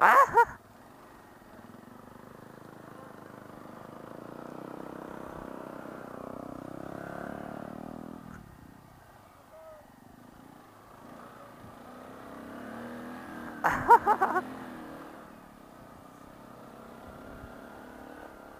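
Honda Grom 125 cc single-cylinder motorcycle engines running, heard faintly; one engine's pitch climbs as it accelerates from about four to seven seconds in, then drops away. A short, loud shout cuts in about fourteen seconds in.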